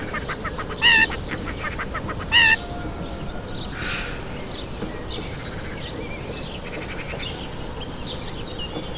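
Hen clucking in a quick run of short clucks, with two short loud squawks about a second and two and a half seconds in, then softer clucks and chirps.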